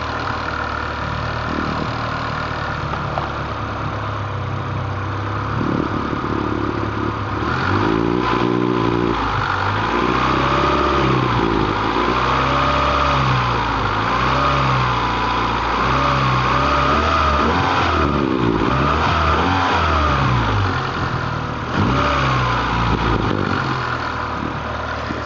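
Honda B18A1 four-cylinder engine with a B1 head idling, then revved up and down several times from about eight seconds in until near the end, when it settles back to idle. A whine rises and falls with the revs, which the owner suspects comes from timing belt tension.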